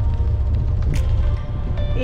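Background music with steady held notes over a deep, steady rumble, with a short click about a second in.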